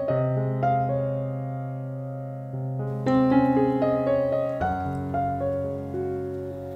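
Background piano music: slow sustained chords, a new chord every second or so.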